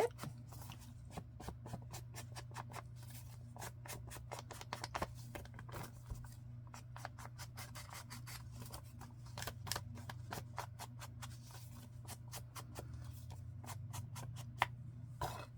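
Ink being worked onto the edge of a piece of paper: a long run of quick, irregular dabs and scrapes of the inking tool against the paper.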